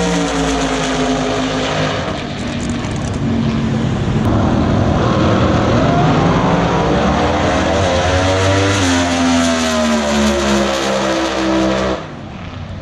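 Drag racing car engines running loud at high revs, the pitch sweeping up and down several times as the cars rev and pass. The sound cuts off abruptly near the end to a quieter engine sound.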